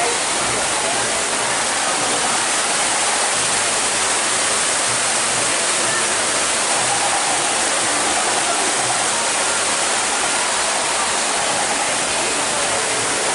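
Steady rushing water, with faint voices beneath it.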